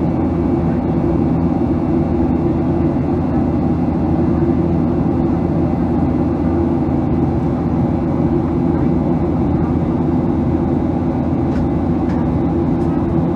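Steady cabin noise of a Boeing 737-800 in the air: the CFM56-7B engines and the rush of air over the fuselage heard from inside as an even, low drone that does not change.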